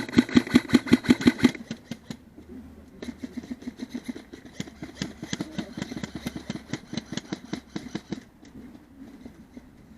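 Airsoft electric rifles firing on full auto, a rapid buzzing rattle of shots. One loud close burst lasts about a second and a half, then quieter, longer bursts follow from about 3 s to 8 s in.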